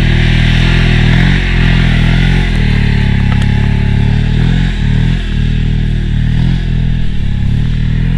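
Motorcycle engine running under steady load while riding through deep sand, its pitch dipping briefly several times as the throttle is eased and picked up again.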